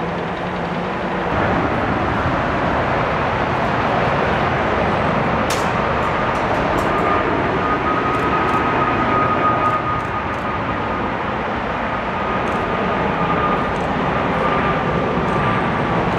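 Boeing 747 freighter's four jet engines on landing approach: a steady roar with a thin high whine held through the middle.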